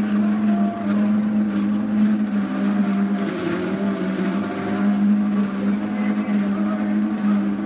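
Electric juicer motor running with a steady hum while beetroot chunks are pushed down the feed chute and crushed, the sound turning rougher for a moment about three seconds in.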